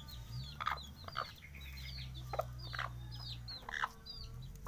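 A brood of 18-day-old kampung chicks peeping rapidly and continually in short, high, falling chirps, while their hen gives low clucks every second or so.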